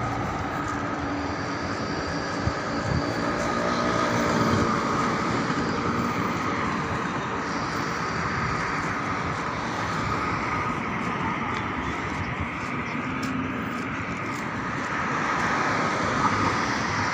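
Steady outdoor city din: an even rumble of traffic and urban noise with a faint steady hum, unchanging throughout.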